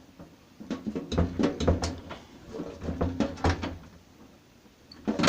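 A quick series of sharp clicks and knocks, metal and plastic parts being pressed and handled as the clips holding a microwave oven's heat sensor are worked loose. The clicks run for about three seconds and then stop.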